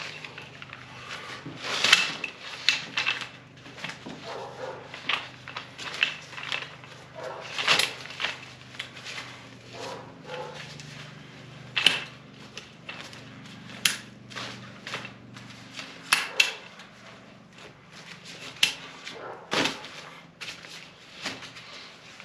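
A Cliq compact folding camping chair being unfolded by hand: its metal legs and frame joints snap and click into place at irregular moments, with the fabric seat rustling between the clicks.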